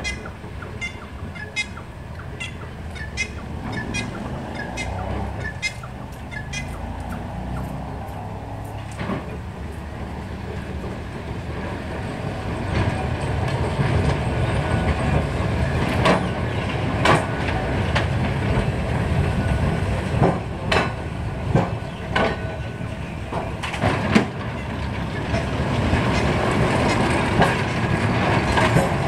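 Tramcar wheels and running gear of Milan tram 1692 and ballast motor 99u rolling along the track. A low rumble builds as the cars come closer, and from about halfway on the wheels give several sharp clanks over rail joints and points.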